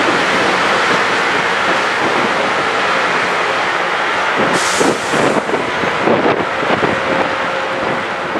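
Loram rail grinder train grinding the rail: a loud, steady grinding hiss, with a few louder surges about halfway through.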